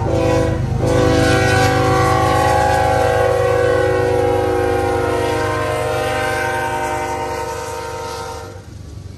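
Norfolk Southern freight locomotive horn blowing for a grade crossing: a short blast, then one long chord held until it cuts off near the end. Under it is the steady rumble of the diesel locomotives passing close by.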